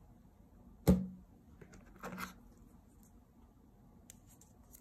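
Handling sounds of an iPhone box being unpacked: one sharp knock about a second in, a short rustle about a second later, and a few faint light clicks near the end.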